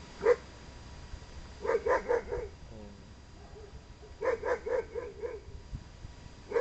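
A dog barking: a single bark, then two quick runs of four or five barks each, and one more bark at the end.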